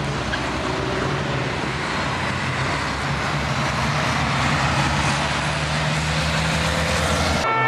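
A pack of racing trucks' big turbo-diesel engines passing at speed one after another, a loud steady engine drone. It cuts off abruptly just before the end.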